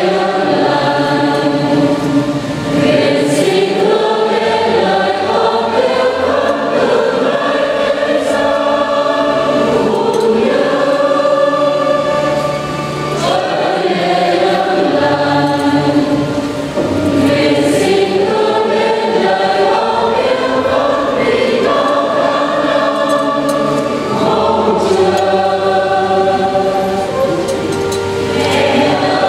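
Church choir singing a hymn in harmony, many voices on long held notes.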